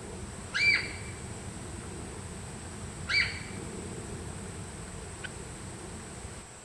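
A bird calling twice, two short arched notes about two and a half seconds apart, with a faint tick a couple of seconds later.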